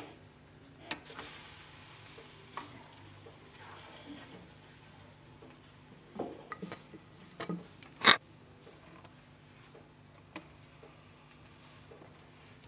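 Raw stuffed paratha sizzling faintly on a hot iron tawa, with scattered light clicks and knocks of handling and one sharp knock about eight seconds in.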